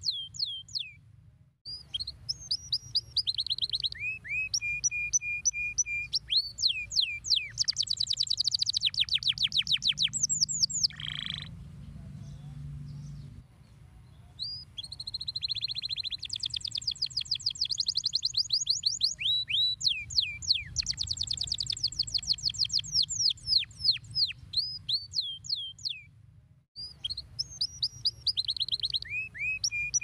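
Domestic canary singing: fast trills of repeated downward-sweeping whistled notes, rolls of rapid clicks and a held steady note, with a short lull about halfway through before the song resumes.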